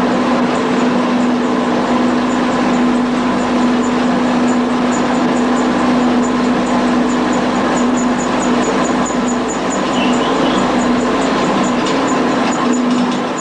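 Loud, steady machinery noise in an underground mine gallery, with a constant hum and a light ticking several times a second.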